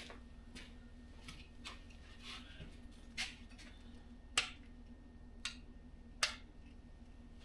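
Irregular sharp clicks, a few of them louder, over a faint steady hum, while a 12-volt diesel heater tries to start on an inverter too weak for its start-up draw.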